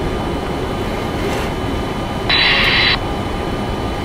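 Steady rumble and hiss on a Boeing 747-400ERF's flight deck on the ground. About two seconds in comes a short, sharp-edged hissing burst with a thin steady tone in it, lasting under a second.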